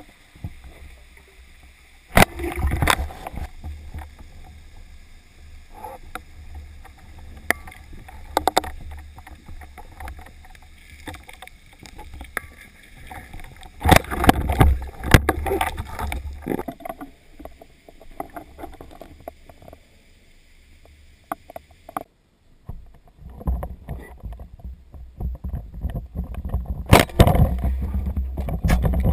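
Water sloshing and churning around a camera in a waterproof housing, with a low rumble and irregular knocks and splashes. It is loudest a few seconds in, around the middle and near the end, and briefly quieter in between.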